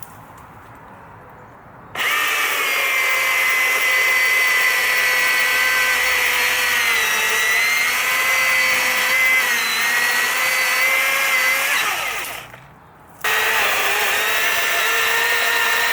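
Milwaukee battery-powered chainsaw's electric motor and chain whining at full speed in two runs. The first lasts about ten seconds, and its pitch sags slightly as the chain works through wood. The second starts after a short stop about a second later.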